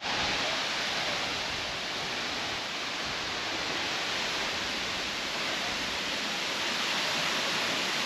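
Steady rushing of a high waterfall, several tall streams of water plunging from a cliff into a pool.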